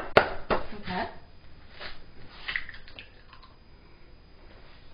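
A raw egg cracked against the mixing bowl: a sharp crack at the start, then a few lighter clicks and rustles as the shell is handled and pulled apart.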